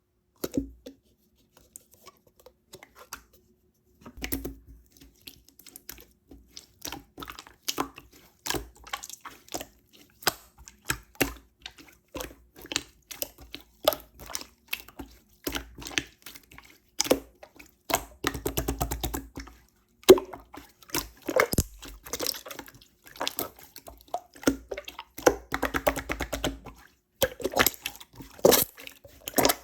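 Slime being squished, poked and stretched by hand, making irregular sticky clicks and wet pops.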